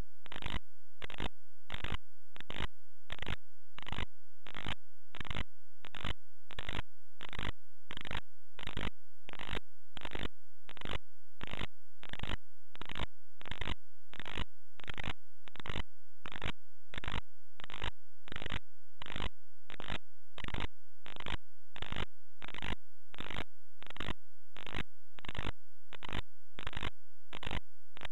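Noise pulsing in an even rhythm, a little under twice a second, over a faint steady high tone.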